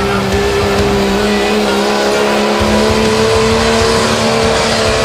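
Turbo-diesel engine of a 1998 Dodge pulling truck held at full throttle under load as it drags the sled, a loud, steady drone and whine whose pitch creeps slowly upward in the second half.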